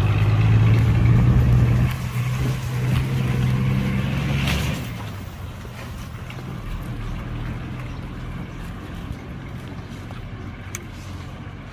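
Heavy diesel engine of construction machinery running loud and steady, then dropping away to a quieter drone about five seconds in.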